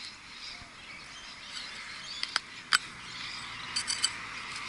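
A few sharp clicks of a digging tool striking hard ground and buried brick while a target is dug out, over a steady outdoor hiss.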